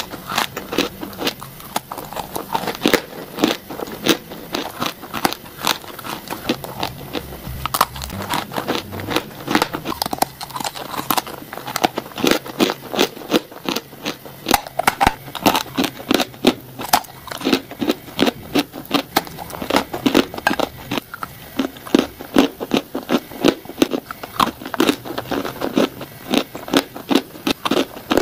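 Close-up crunching bites and chewing of dry, crumbly chalk-like blocks: a quick, unbroken run of sharp, crackly crunches, several a second.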